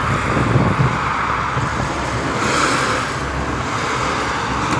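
Steady road-traffic noise, a low rumble with hiss, swelling into a louder rush a little past halfway as a vehicle goes by.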